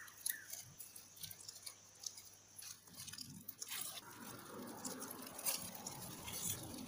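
Faint crinkling of thin disposable plastic food gloves with soft handling noises as fillings are laid and pressed onto rice and nori, getting busier about four seconds in.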